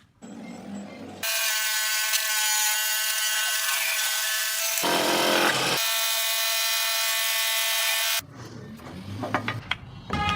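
A small electric power carving tool runs steadily with a high-pitched whine for several seconds, with a brief rougher grinding patch partway through. Near the end come a few light knocks and taps.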